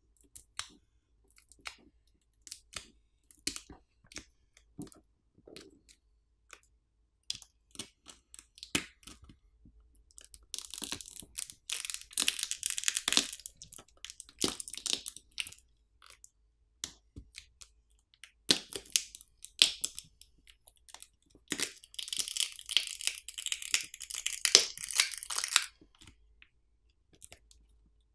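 Battery adhesive and its plastic pull pouch under a Nothing Phone 2a's battery crackling and tearing as the battery is pried up by hand. Scattered small clicks and crinkles, then two longer stretches of dense crackling, about ten seconds in and again about twenty-one seconds in.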